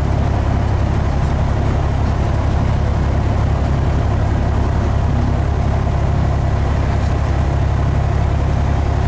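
Cessna 172's piston engine and propeller running steadily, heard from inside the cabin, with no change in pitch.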